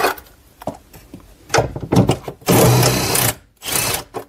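Red cordless power driver with a socket running in three short bursts, the middle one the longest and loudest, spinning out a 10 mm bolt.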